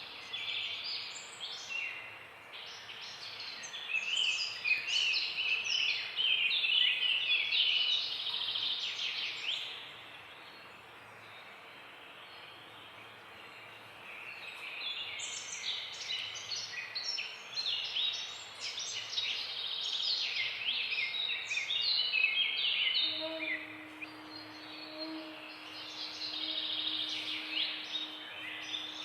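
Birds chirping and twittering in a busy, overlapping chorus of quick high notes, easing off for a few seconds near the middle. A steady low hum joins in during the last quarter.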